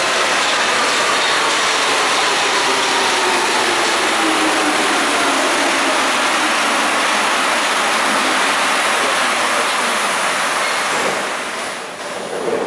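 Rubber-tyred Paris Metro Line 6 train pulling into the platform: a loud rush of the running gear with a whine that falls in pitch as it brakes, easing off near the end as it comes to a stop.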